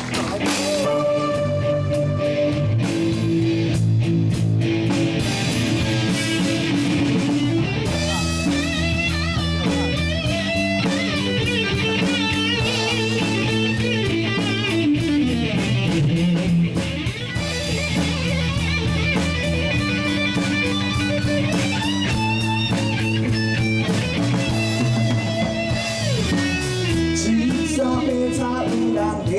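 Live band playing the instrumental intro of a rock song, with a guitar lead over a drum kit.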